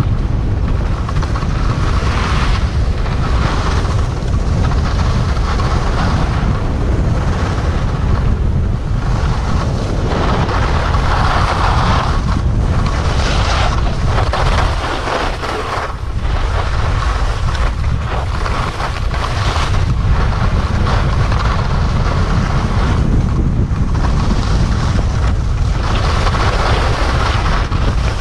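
Wind buffeting the microphone of a camera carried by a downhill skier, a heavy low rumble, with the hiss of skis sliding and scraping over packed snow that rises and falls through the turns. The rush eases briefly about halfway through.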